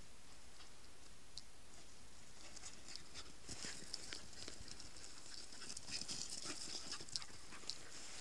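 Light patter and rustling of steps on a grass lawn, a scatter of short sharp clicks that grows busier from about three seconds in and is thickest around six to seven seconds.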